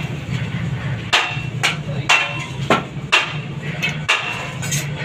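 Sharp metallic knocks, about seven of them at uneven intervals of half a second to a second, each with a brief ring, over a steady low hum.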